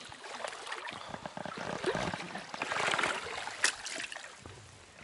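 Shallow river water splashing and trickling close by, with scattered clicks and knocks. A louder rush of splashing comes about three seconds in, and a sharp click just after it.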